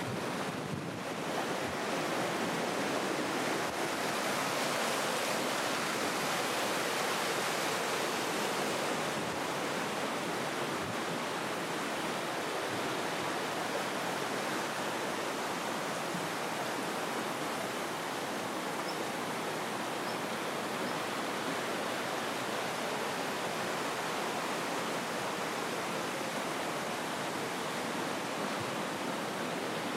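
Rushing water, a steady even hiss with no breaks.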